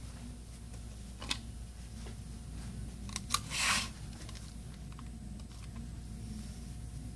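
A few sharp clicks of small phone parts being handled during smartphone reassembly, one about a second in and two just after three seconds, followed by a short scrape, over a steady low hum.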